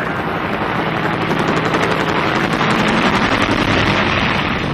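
Machine gun in sustained, very rapid fire with no break, swelling louder about three seconds in and easing off near the end.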